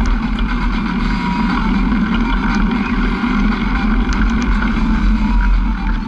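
Engine of a small off-road vehicle running steadily at an even cruising speed, with wind noise on the microphone.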